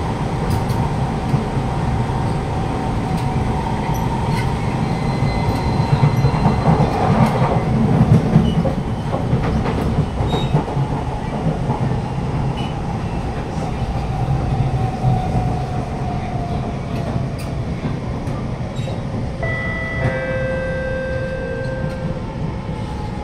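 Siemens C651 MRT train heard from inside the car while running: a steady rumble of wheels on track with scattered clicks over rail joints, and a motor whine that slowly falls in pitch as the train slows into a station. A few new higher tones join in near the end as it brakes.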